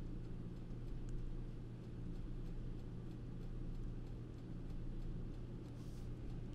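Low steady electrical hum with a few faint clicks of computer keyboard keys.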